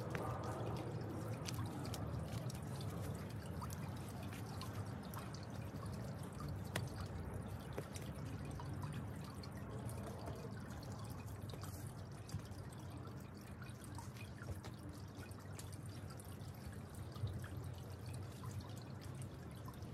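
Tiered garden water fountain trickling and dripping steadily, with a few faint clicks now and then.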